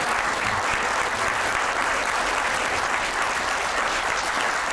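Theatre audience applauding steadily: many hands clapping in a dense, even patter.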